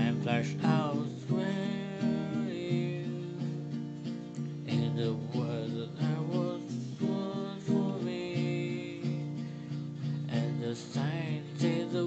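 Acoustic guitar strummed in slow, even chord strokes, a song accompaniment played without singing.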